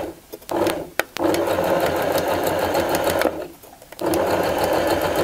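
Domestic electric sewing machine stitching a seam at its longest stitch length, a basting seam sewn without backtacks. It runs briefly, then runs steadily, stops for a moment a little after three seconds in, and runs again from about four seconds.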